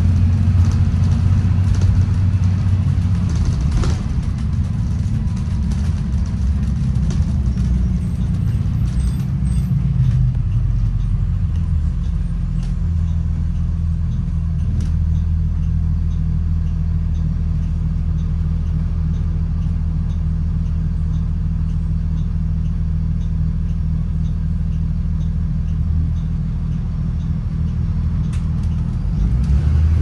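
Low engine drone and road rumble inside the cabin of a 2016 Blue Bird Vision school bus under way. The engine note shifts about ten seconds in, then holds steady.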